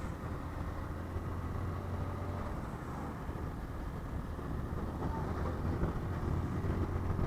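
Motor vehicle running, a steady low rumble with road noise.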